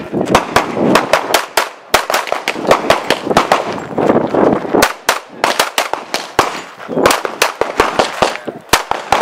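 Para P14 pistol firing fast strings of shots, many in quick pairs, with brief pauses between strings.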